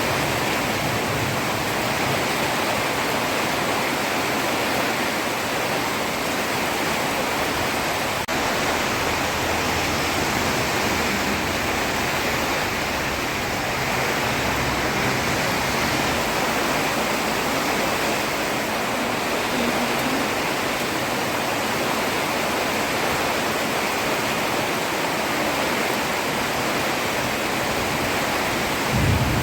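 Heavy rain falling steadily on a road: a dense, even hiss.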